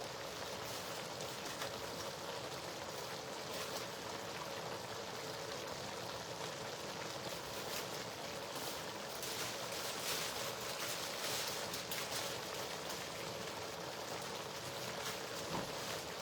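Food cooking in a pot on the stove: a steady bubbling, sizzling hiss that gets a little brighter about ten seconds in.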